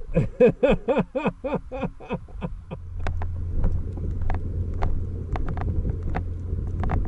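A man laughing in a run of about a dozen fading "ha"s, followed by a snowmobile engine running steadily at idle, a low rumble with a few sharp clicks.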